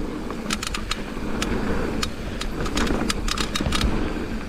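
Mountain bike rolling along a dirt trail: a steady low rumble of tyres and wind, broken by scattered sharp clicks and rattles, in two clusters about half a second in and again around three seconds in.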